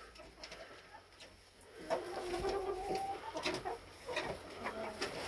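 Chickens clucking and making drawn-out calls, starting about two seconds in.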